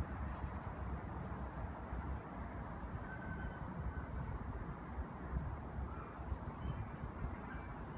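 Faint short bird chirps scattered over a steady low rumble of outdoor background noise.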